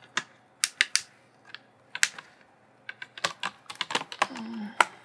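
Plastic laptop display bezel being fitted and pressed onto the screen lid: sharp plastic clicks as its clips snap into place, a few scattered at first, then a quick run of clicks in the last two seconds.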